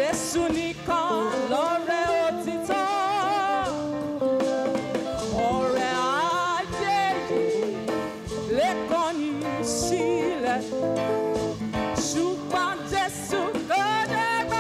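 Worship song: a singer's voice with strong vibrato and gliding notes over steady instrumental backing.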